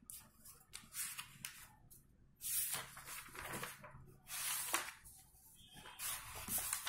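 Paper pages of a printed book rustling as they are turned by hand, in several short bursts.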